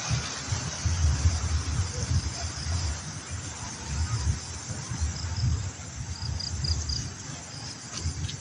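Riverbank ambience: insects chirping steadily, with a few faint high chirps about two-thirds of the way in, over uneven low rumbling gusts of wind on the microphone.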